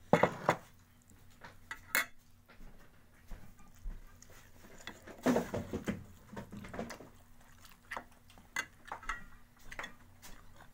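Plate and cutlery clinking during a meal, as scattered short clicks and knocks, busiest about five to six seconds in.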